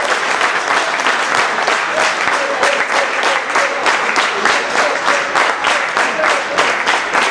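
Audience applauding, much of the clapping falling into unison at about three claps a second.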